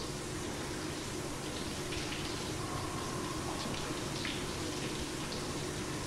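Shower running, a steady spray of water.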